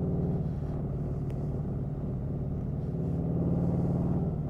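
Motorcycle engine running steadily at cruising speed, heard from on the bike itself, growing slightly louder about three seconds in.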